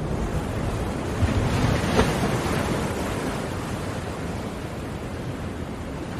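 Ocean waves breaking on a shore: one wave swells and crashes about two seconds in with a brief sharp splash, then the surf washes and slowly eases off.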